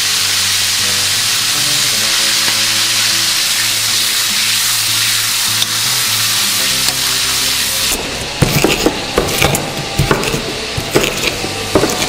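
Oil sizzling in a metal wok as sliced shallots fry, with a spatula stirring and scraping. About eight seconds in, this gives way to a stone pestle knocking and grinding green chilies in a stone mortar.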